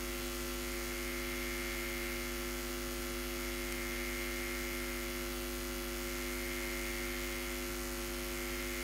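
Steady electrical mains hum and buzz, several tones held unchanged throughout.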